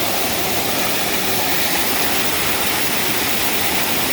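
Waterfall cascading: a loud, steady rush of falling water.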